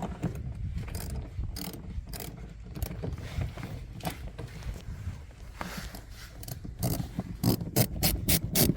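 Irregular mechanical clicks and rattles of hand work on wiring fittings, with a faster, louder run of clicks near the end.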